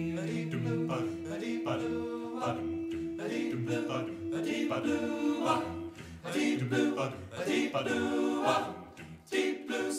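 A cappella vocal group singing in harmony without clear words, one voice holding a long steady note for about six seconds while the others move beneath it, then shorter sung phrases.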